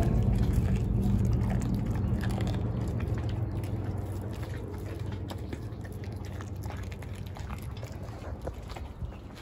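A large dog chewing and gnawing a raw meaty leg bone: irregular wet smacking and small crunches as it works the meat. A low steady hum sits underneath and fades gradually.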